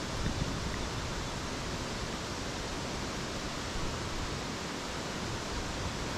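Steady rushing noise of wind buffeting the microphone over rippling water, even throughout with no distinct knocks or clicks.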